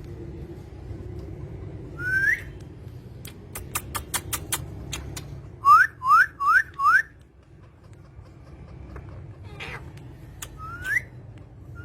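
Parrot whistling short rising notes: one about two seconds in, a quick run of four around six seconds, and one more near the end. A string of sharp clicks comes between them, over a steady low hum.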